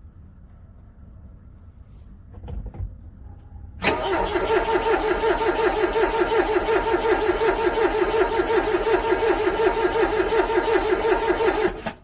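Car engine cranking on its starter motor in freezing cold, an even rhythmic churn of about four beats a second. It starts suddenly about four seconds in and cuts off abruptly after about eight seconds without the engine catching: a cold engine failing to start.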